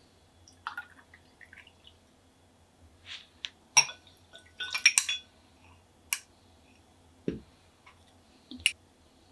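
Scattered glassware clinks and clicks while a cocktail is built over a large ice cube in a cut-crystal rocks glass, with a short pour from a stainless steel jigger into the glass. The clinks come busiest about four to five seconds in, followed by a dull knock and a last sharp clink near the end.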